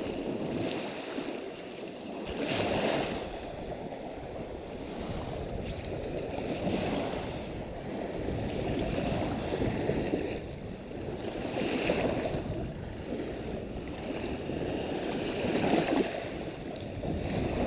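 Small waves washing onto a beach, the surf swelling and fading every few seconds.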